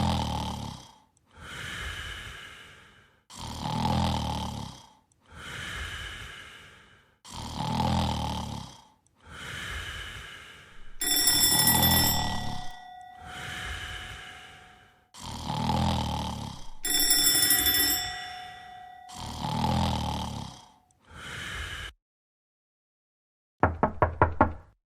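Cartoon snoring sound effect: slow, even snores about every two seconds, two of them carrying a whistling tone. After a short pause near the end comes a quick run of knocks on a door.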